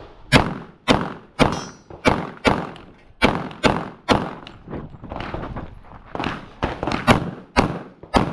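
Pistol fired in rapid succession, about two shots a second with around sixteen shots in all: a competitor shooting through a timed practical-shooting stage.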